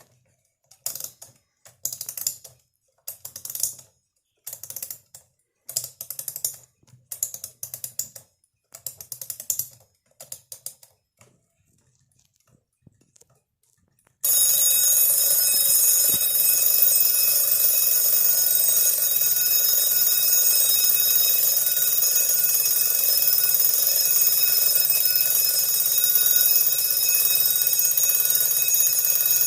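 Old Schattan alarm clock: about ten short bursts of mechanical clicking over the first eleven seconds. Then, about fourteen seconds in, its alarm bell goes off suddenly and keeps ringing loudly and continuously.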